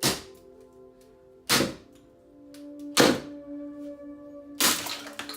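Four heavy strikes on a screwdriver, about a second and a half apart, over background music.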